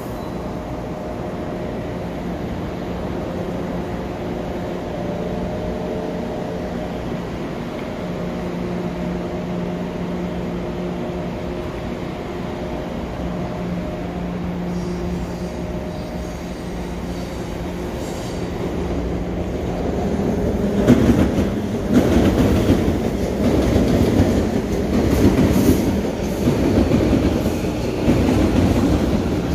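Electric commuter train humming steadily at a station platform, a few steady tones over a low hum. About twenty seconds in, a passing train takes over, louder, its wheels clicking and clacking over the rail joints.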